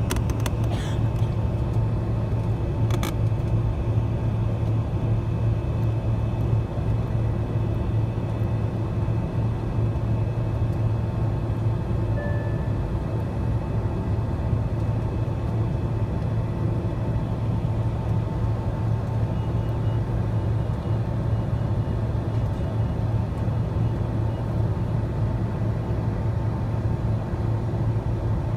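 Cabin sound of a Boeing 767-300ER taxiing: a steady low rumble from the engines at taxi power and the airframe, with a faint steady whine over it. A couple of faint clicks come in the first few seconds.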